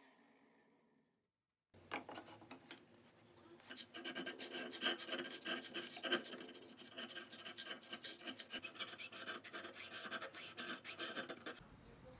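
Steel hand chisel paring and scraping out a notch in a hardwood piece held in a vise: a fast, uneven run of scraping strokes from about two seconds in, stopping shortly before the end. Before it, a power tool faintly winds down.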